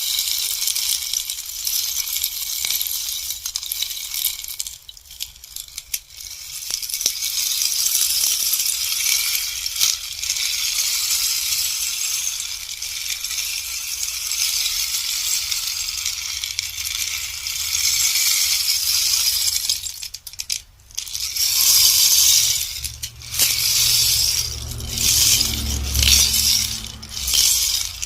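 Bamboo rainstick being tipped, its filling trickling down through the tube in a long, even rain-like rattle. About two thirds of the way through it turns into shorter pours with brief gaps, along with a low rumble.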